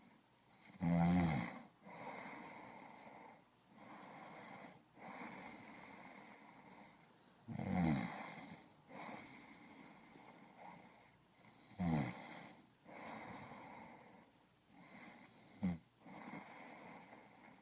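A person snoring: four loud, rasping snores a few seconds apart, with softer breathing in between.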